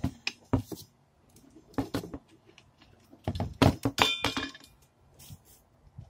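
Knocks, clinks and clangs from BMX mag wheels being handled in their cardboard box, in clusters, with a brief metallic ring about four seconds in.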